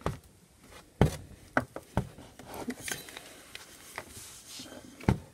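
Handling noises from a plastic fashion doll being moved about and stood up: light rustling with a few sharp knocks, about a second in, at two seconds and near the end.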